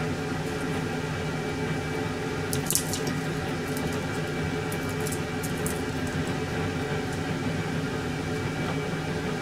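A pot gently simmering on the stove, bubbling steadily over a constant low hum, with a few brief crisp crackles as papery garlic skins are peeled off by hand.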